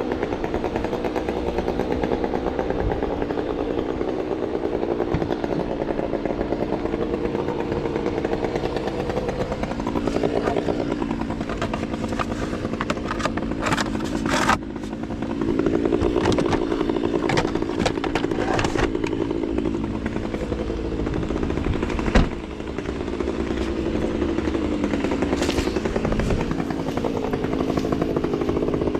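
Engine running steadily, its pitch rising and falling, with a sharp knock about halfway through and another later on.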